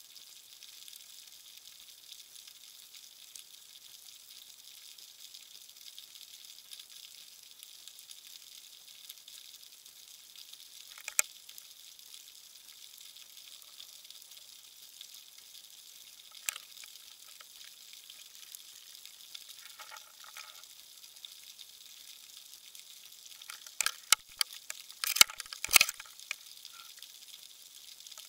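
Underwater ambience: a steady fine crackling hiss like frying fat. Sharp clicks stand out now and then, and a cluster of louder clicks and knocks comes near the end.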